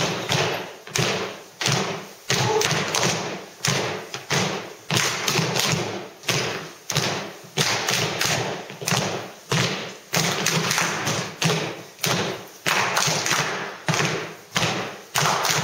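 Dancers' feet stamping and landing on a wooden studio floor in unison, a regular beat of heavy thumps about two a second, each echoing briefly in the hall.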